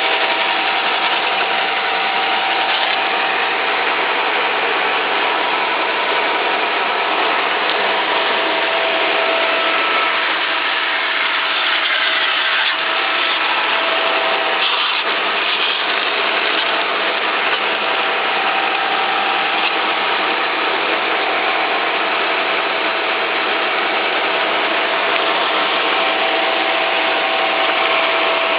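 Meber SR900 industrial resaw band saw, with 36-inch solid wheels that carry no tires, running steadily: an even mechanical hiss with a few steady whining tones.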